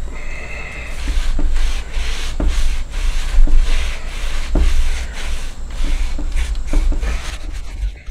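Damp microfibre rag rubbing and wiping over the painted wood of a rocking chair's back, in repeated back-and-forth strokes, with a few light knocks against the chair and a steady low rumble underneath.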